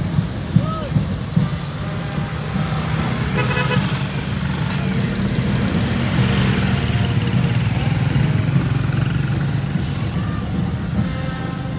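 Motor vehicle engines running steadily close by in street traffic, with a brief horn toot about three and a half seconds in.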